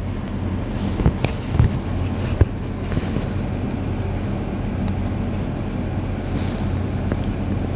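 A steady low electrical or machine hum, with a few short soft clicks between about one and two and a half seconds in.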